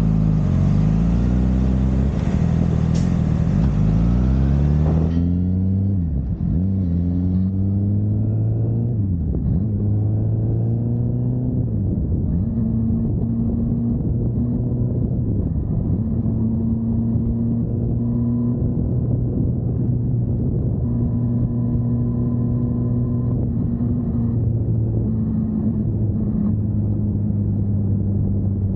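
Honda CBR1000RR inline-four engine accelerating under wind rush on the microphone. About five seconds in, the wind noise drops away and the engine note falls, then settles into a steady low note.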